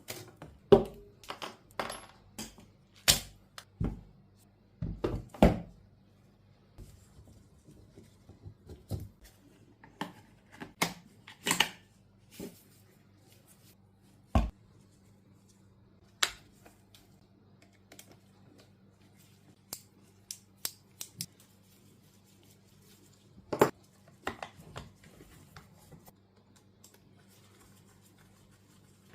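Hands handling a Bohan SLR V2 toy gel blaster and its parts: irregular plastic clicks, knocks and light rattles, several in quick succession in the first six seconds, then scattered taps, with a short cluster a little before the end.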